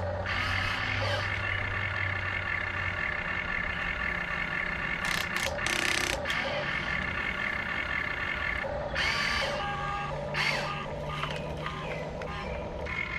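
The electric motors and mostly plastic gearboxes of small RC construction machines whine steadily as they drive and dig. Their pitch shifts about nine seconds in, and short rattling scrapes come around the middle and again near the end.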